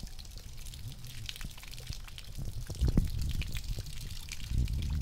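Water pouring and dripping out of a plastic bottle fish trap onto wet mud, a trickling stream with many small splashes. A couple of dull thumps about three seconds in and near the end.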